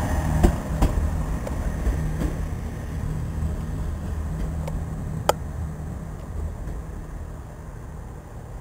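Chiltern Railways Class 165 diesel multiple unit pulling away, its underfloor diesel engines making a steady low drone that fades as the train moves off. There are a few sharp clicks, the loudest about five seconds in.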